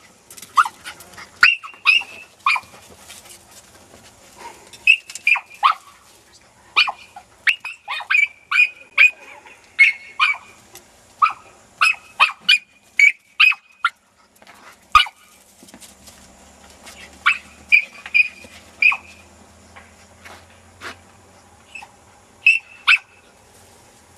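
A dog barking and yelping in quick runs of short, sharp, high calls, with short gaps between the runs.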